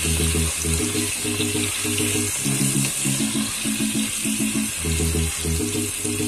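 Potato chunks frying in hot oil in a pot: a steady sizzling hiss. Under it runs background music with a repeating low beat.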